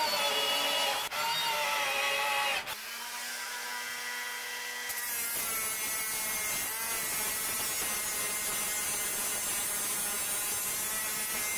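A cordless drill whines as it bores holes into a hardwood hatch frame piece, with a brief pause about a second in. It stops after nearly three seconds. A quieter hum follows, and then a small random orbital sander runs steadily on the plywood deck.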